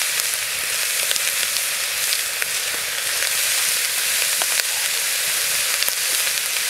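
Bacon and onion sizzling in a hot cast-iron Dutch oven over a wood fire: a steady frying hiss with scattered small crackles, the start of browning the bacon and onion.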